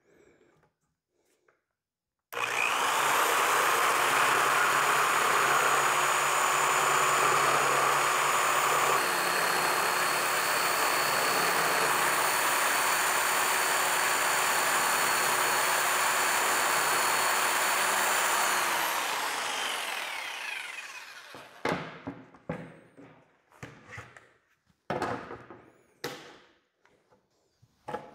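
A jigsaw cuts through plastic interlocking garage floor tiles clamped to a board. The saw starts about two seconds in and runs steadily for some sixteen seconds; its whine shifts partway through, and then it winds down as the blade slows. A few short knocks follow near the end.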